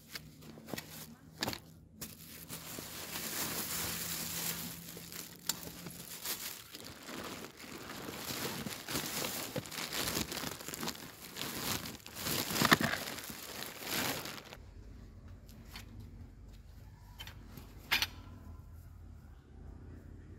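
Clear plastic bags crinkling and rustling as camping gear is pulled out of a packed bag, with many small crackles, stopping abruptly about two-thirds of the way through. After that a quieter low rumble with one sharp click.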